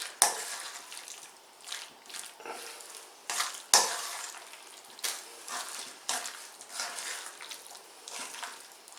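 A spoon stirring dressed potato salad in a bowl: irregular wet squelching and scraping strokes, with sharper knocks against the bowl just after the start and near the middle.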